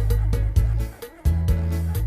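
Background music with a steady beat and heavy bass, dropping out briefly about a second in before the beat comes back.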